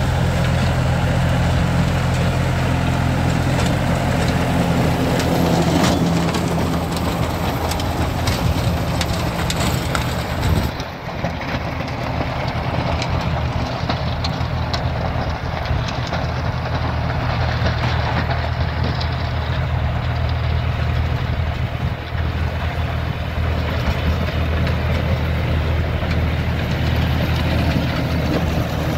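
John Deere tractor's diesel engine running steadily under load while its PTO-driven rotavator churns dry, stubbly soil, with crunching and clatter from the blades. The crunching highs fall away about ten seconds in as the tractor draws off, leaving mostly the engine's drone.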